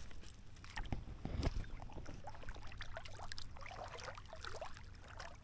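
Shallow seawater sloshing and splashing softly in small, irregular bursts around a person's legs as they wade slowly across the flat.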